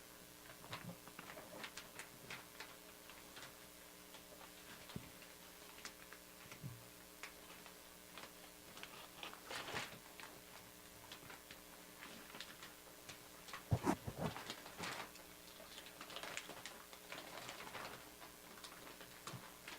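Faint, scattered clicks and light rustling of handling, with a louder cluster of clicks and rustle about 14 seconds in.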